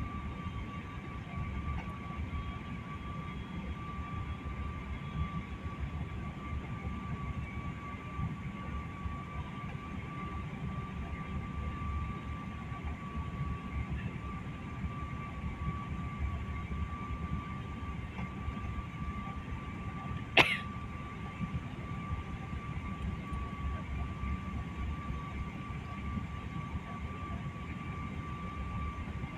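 Airliner cabin noise in flight: a steady low rumble of engines and airflow with a faint steady whine over it. A single sharp knock about two-thirds of the way through.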